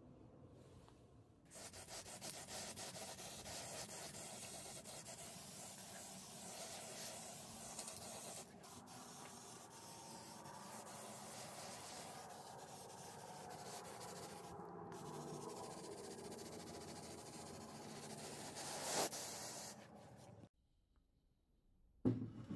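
Aerosol spray-paint can hissing in three long, steady bursts with short breaks between them. Near the end comes a single metal clunk.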